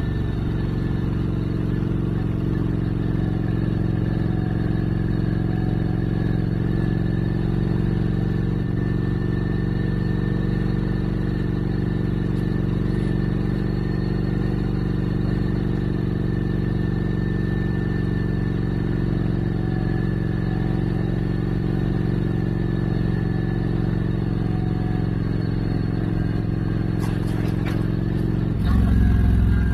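Motorcycle engine running steadily at cruising speed, then changing abruptly to a louder, lower note near the end.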